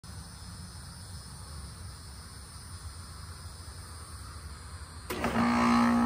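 Goodman GSZ14 heat pump starting up: a low steady background rumble, then about five seconds in its Copeland scroll compressor kicks on with a sudden loud electric hum, which eases slightly as it settles.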